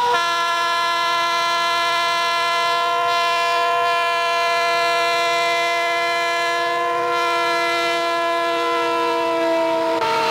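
Diesel freight locomotive's air horn blown in one long, steady blast of about ten seconds as the lead unit of a loaded coal train approaches, the pitch dropping near the end as the locomotive passes.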